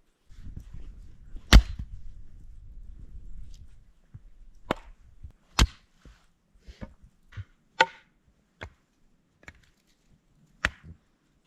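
Firewood being chopped: about six sharp, unevenly spaced blows, the loudest about one and a half seconds in, with lighter knocks between them.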